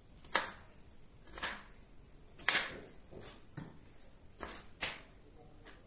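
Kitchen knife cutting peeled raw potatoes into chunks on a plastic chopping board: six sharp knocks of the blade meeting the board, spaced irregularly about a second apart.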